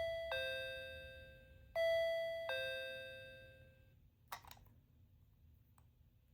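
Capsule-toy sound gadget playing an electronic two-note ding-dong chime, high note then low, twice, each fading away over a couple of seconds. A short click follows a little after four seconds.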